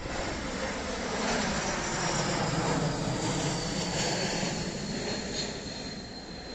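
Jet airplane flying past: rushing engine noise with a thin high whine that slides slightly down in pitch, swelling and then fading near the end.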